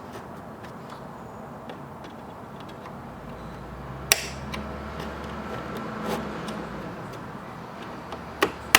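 Screwdriver prying at the plastic case tabs of a WASD V1 keyboard: small ticks and scrapes of tool on plastic, with a sharp click about four seconds in and two more near the end as the tabs snap open.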